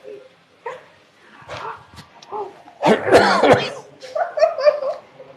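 A man coughing and spluttering in several bouts, choking on a mouthful of pickled ginger eaten on its own. The loudest bout comes about three seconds in.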